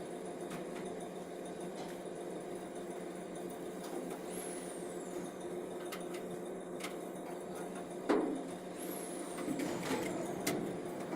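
CNC turn-mill lathe running a machining cycle: a steady machine hum, with a high whine that falls in pitch twice, a few sharp clicks, and a louder knock about eight seconds in.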